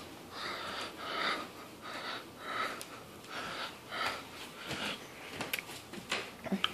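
A person breathing close to the microphone, a soft breath about once a second, with a few faint clicks near the end.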